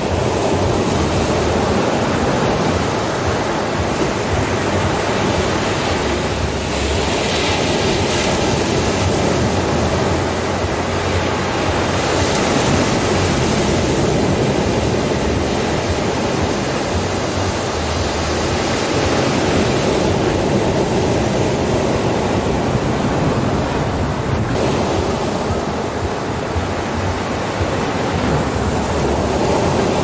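Ocean surf breaking and washing up a sandy beach: a continuous rush of water that swells and eases as each set of waves comes in.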